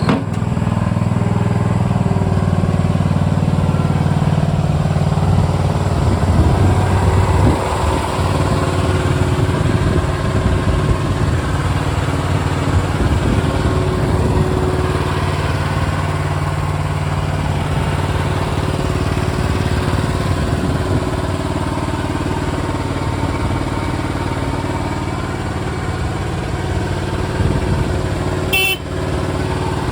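Engine of a compact crawler skid steer loader running steadily, its pitch shifting a little in the first half, with a single sharp click near the end.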